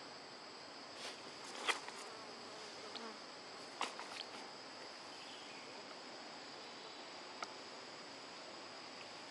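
Steady high-pitched insect drone, with a few short clicks scattered through it.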